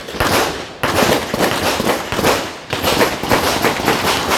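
Rapid handgun fire: many sharp shots in quick succession, some overlapping, with louder clusters about a second in, after two seconds and after three.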